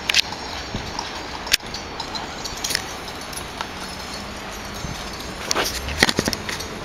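Hoofbeats of galloping horses on a loose dirt arena as two riders chase a steer, heard as scattered sharp knocks over a steady background hiss, a few louder knocks near the end.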